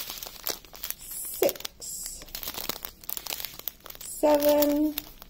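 Small plastic zip-lock bags of diamond painting drills crinkling and rustling as they are handled and sorted in the hand. A short hummed note comes near the end.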